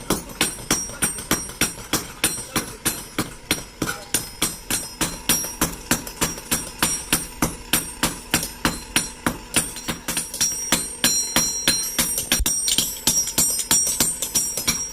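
Hammer striking hot steel on an anvil while forging an axe, in an even rhythm of about three blows a second, each blow ringing metallically.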